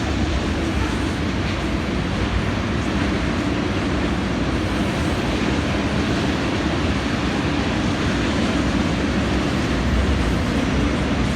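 Florida East Coast Railway freight train of tank cars rolling past, a steady, even rumble of steel wheels on the rails.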